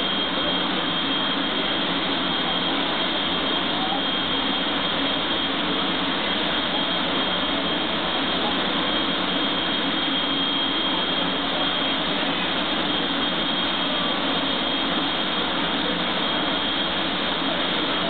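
Jet funny car's turbine engine running steadily while the car stands at the start, a constant rush with a steady high whine over it.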